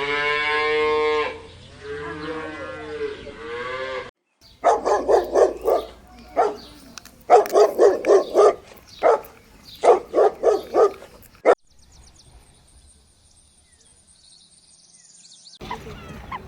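Farm animal calls, cattle among them: a long drawn-out mooing call that cuts off suddenly, then three bursts of rapid, repeated calls. After these come a few quiet seconds with a faint high whine.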